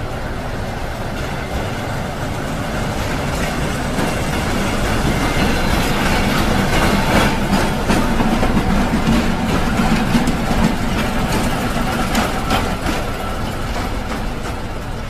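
Diesel locomotives pushing a rail snowplow past at speed. The engines run with a steady rumble, and wheels click over the rail joints. The sound swells through the middle as the train passes closest, then eases near the end.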